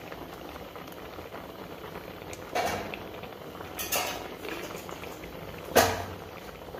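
A pot of sheer khurma, milk with vermicelli and dates, bubbling steadily at the boil. Three short knocks break through the bubbling, the last and loudest near the end.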